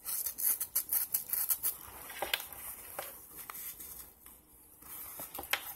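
Velcro (hook-and-loop) closure on a nylon handcuff pouch's flap being pulled open, a quick crackling tear over the first couple of seconds, followed by a few separate handling clicks.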